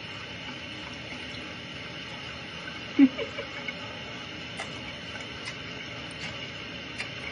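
Steady hiss of a tap left running for a cat to drink from. About three seconds in there is one short pitched squeak, and a few faint ticks follow.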